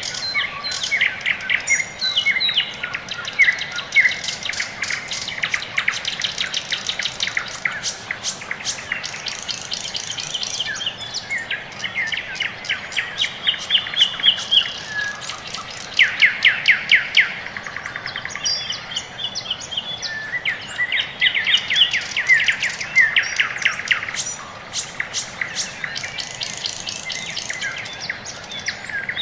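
Small songbirds chirping and singing, with many fast repeated trills.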